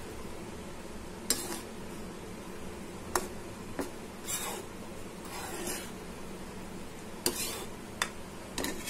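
A steel spoon stirring boondi in one-string sugar syrup in a pan. The spoon clinks sharply against the pan about six times, with a couple of softer scraping sweeps in the middle, over a steady low hum.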